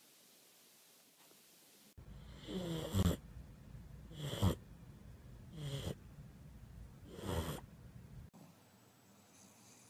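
Sleeping pug snoring, starting about two seconds in: four loud snores, about a second and a half apart.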